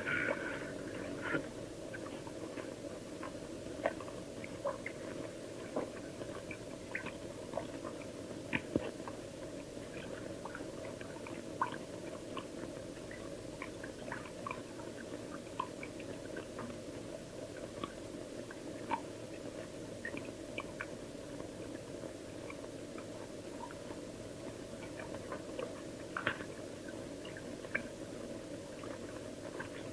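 Quiet background: a steady low hiss with scattered faint clicks and ticks throughout.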